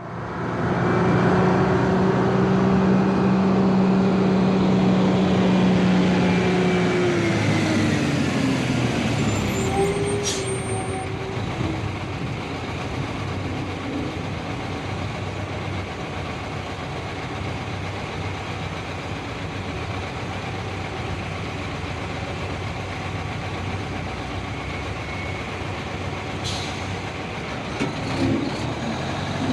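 A car engine held at steady high revs, then falling in pitch over a few seconds and settling into a lower, steadier running sound.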